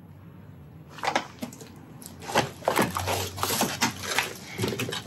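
Junk and fire debris clattering and crunching as someone clambers through a cluttered, burned-out room: irregular knocks, scrapes and crunches starting about a second in.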